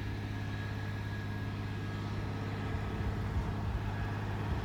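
An engine running steadily with a low, constant hum.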